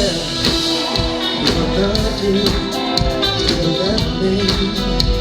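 Up-tempo music with a voice singing over a band and a steady beat.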